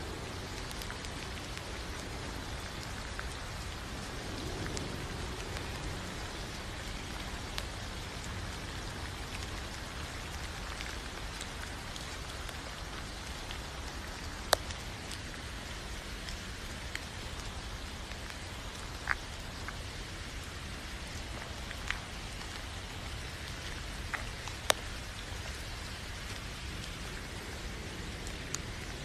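A steady hiss of falling rain, with a few sharp taps now and then.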